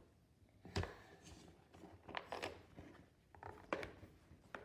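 Faint, scattered taps and clicks of small objects being handled.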